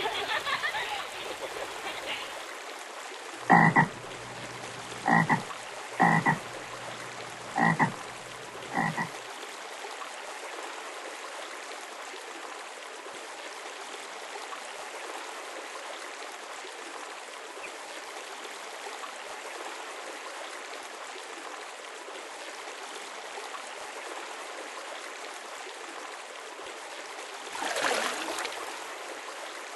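Frog croaking five times in a few seconds over the steady splash of a small pond waterfall, with a brief louder rush of water near the end.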